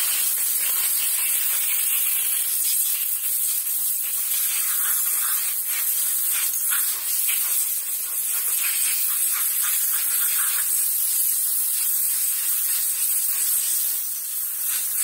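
Compressed air hissing from a rubber-tipped blow gun, very loud and continuous, as it is blown through the passages of a Johnson 9.9 outboard's carburetor to dry it after cleaning.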